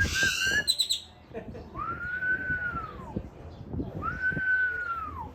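Two long, clear whistles about two seconds apart, each holding one pitch and dropping away at the end, answering a call to whistle; a shorter whistle with high chattering comes at the very start.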